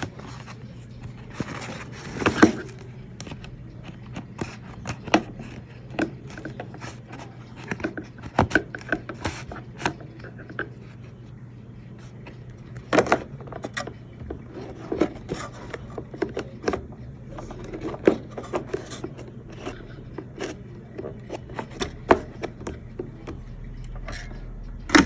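Irregular clicks, knocks and scrapes of hard objects being handled, with the loudest knocks about 2.5, 13 and 18 seconds in, over a low steady hum.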